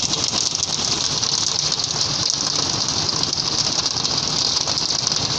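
Heavy rain falling steadily, a dense crackling patter of drops.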